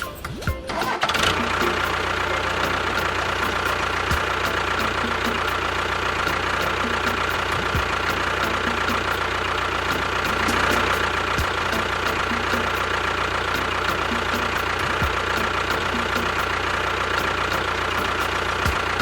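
Engine running steadily. It starts about a second in and cuts off near the end, with a low knock about every three and a half seconds.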